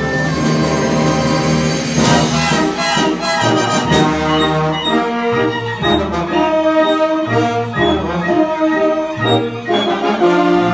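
A symphony orchestra playing classical music, strings and brass together, with held chords that change from note to note.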